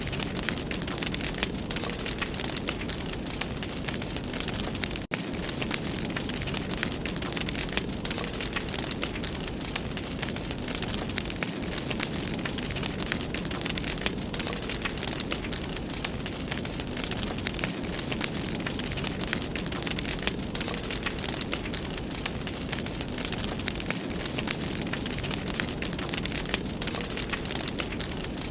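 Wood fire burning in a fireplace: a steady rush with many small crackles and pops throughout, and a momentary cut-out about five seconds in.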